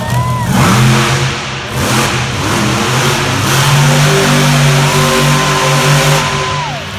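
Monster truck's supercharged V8 running loud and revving, echoing around an indoor arena.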